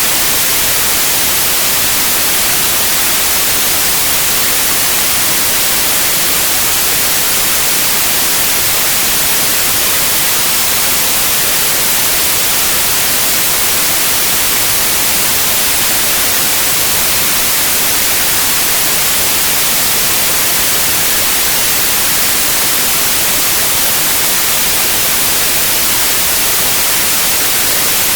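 Synthetic white noise: a loud, steady hiss, unchanging throughout, strongest in the treble.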